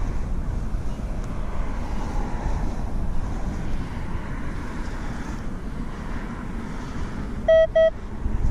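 Wind buffeting the microphone as a steady low rumble. Near the end, two short, loud beeps from a metal detector as its coil passes over a target.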